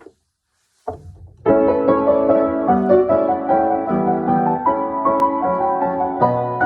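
Solo piano music: after a short silence, a quick, flowing succession of notes begins about a second and a half in.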